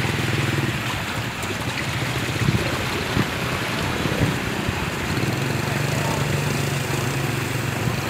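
Floodwater sloshing and splashing as a car and a motorbike drive slowly through deep water, over a steady engine hum. The hum thins out in the middle, where a few sharper splashes stand out, and comes back strongly about five seconds in.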